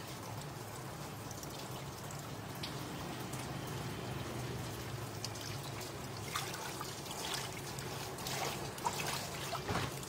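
Water trickling and dripping steadily, with a few sharper splashes and drips in the last four seconds.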